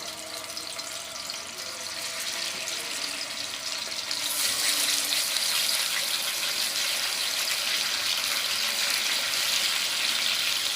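Meat pieces sizzling in hot oil in a cooking pot as they sear, a steady hiss that gets louder about four seconds in.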